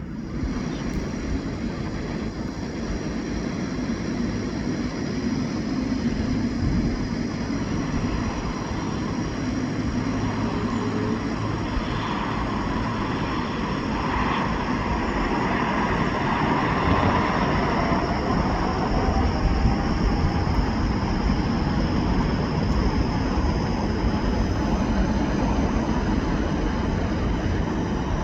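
Jet airliner engine noise, a steady roar that grows louder towards the middle and holds, with a faint tone sliding down in the second half.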